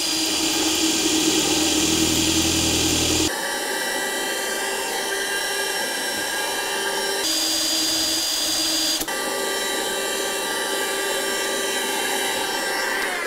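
Cordless drill boring a hole through a wooden baseboard for about three seconds, then a handheld cordless vacuum cleaner running steadily with a whine, sucking up the drill dust.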